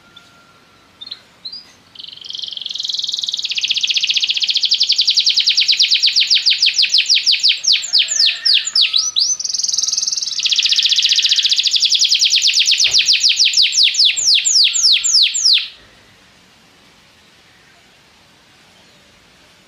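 Domestic canary singing: a few short notes, then a long, very fast trill of rapidly repeated high notes. About midway it breaks into slower sweeping notes, then rolls again before stopping abruptly.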